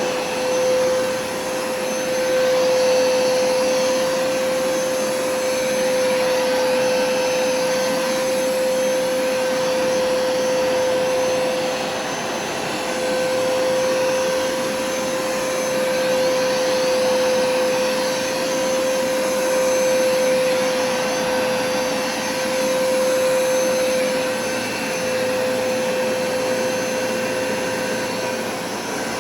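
Hoover carpet-cleaning machine running continuously: a steady motor whine at one constant pitch over a rushing suction noise. The level swells and dips slightly every few seconds.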